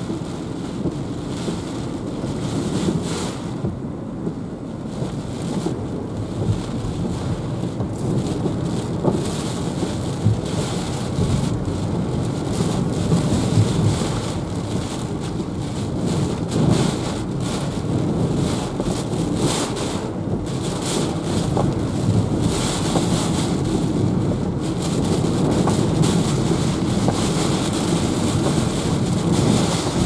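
Heavy typhoon rain and gusting wind beating on a moving car, over a steady low rumble of the car on the flooded road. The hiss of the rain swells and fades in irregular gusts.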